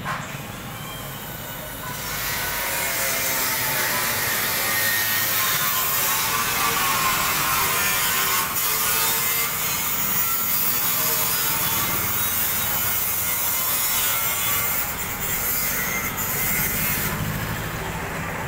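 A power tool grinding metal in a welding workshop, a steady harsh rasping hiss with a slightly wavering pitch. It starts about two seconds in and stops shortly before the end.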